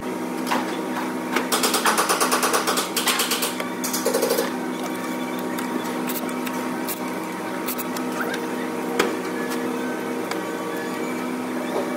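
Ratchet wrench clicking in two quick runs of fast, even clicks about a second and three seconds in, then a single sharp click later, over a steady hum.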